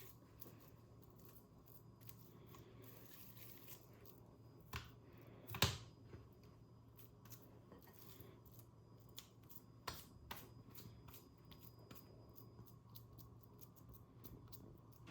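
Quiet kitchen handling noises: scattered faint clicks and taps over a low steady hum, with a few louder knocks, the loudest a little before the middle and two more about two-thirds through.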